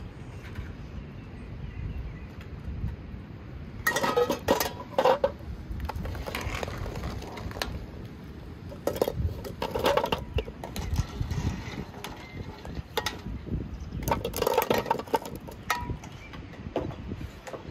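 Boiled eggs clinking against each other and against an enamel bowl and metal ladle as they are scooped from the pot, in several short bursts of clinks a few seconds apart, over a steady low rumble.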